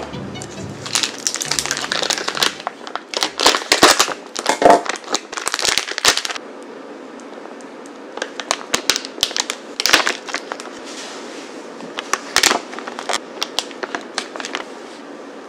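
Plastic wrapper of a large block of cream cheese crinkling and crackling as it is pulled open, dense for the first six seconds or so, then sparser, lighter crackles and taps as the block is scraped and cut.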